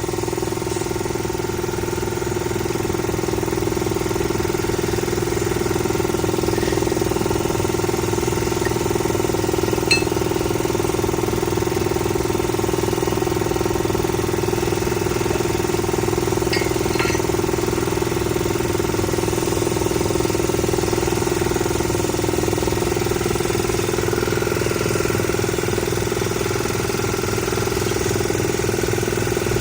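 An engine running steadily at idle, with a constant hum and one faint click about ten seconds in.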